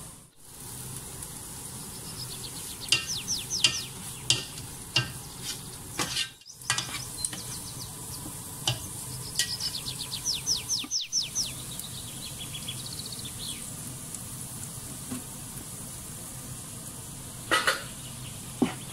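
Chopped onion and garlic frying in oil and butter in a pot, a steady sizzle, while a spatula stirs and scrapes against the pot in runs of quick strokes and clicks. A few sharp knocks of the spatula come near the end as flour is stirred in.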